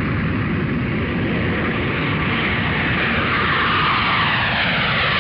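An airplane flying past: a steady, loud rush of engine noise whose whine falls in pitch through the second half as it goes by.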